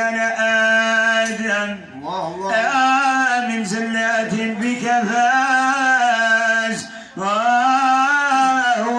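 A man singing a Moroccan Sufi madih (praise song) into a microphone, in long held, ornamented notes, with short breaks for breath about two seconds in and again about seven seconds in.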